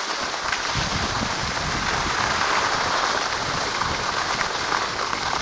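Skis sliding over snow, a steady gritty hiss.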